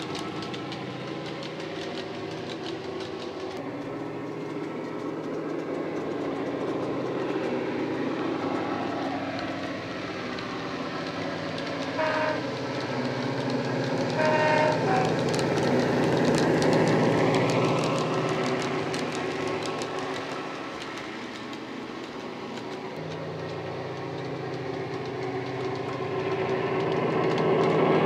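Dapol Class 68 model locomotive's DCC sound decoder, a Coastal sound file played through an EM2 speaker, running a diesel engine sound with deep bass, along with the clatter of the model's wheels on the track. Two short horn blasts come near the middle, and the engine sound grows louder near the end as the locomotive comes close.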